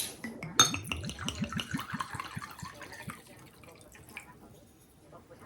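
A click, then liquid pouring or running for about two and a half seconds with a quick, gurgling pulse.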